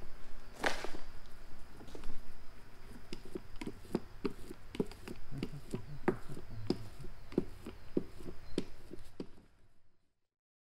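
Small metal laminating roller worked back and forth over wet fiberglass cloth in a mold to squeeze out air bubbles, giving a run of light clicks a few times a second, with a louder scrape about a second in. The sound fades out near the end.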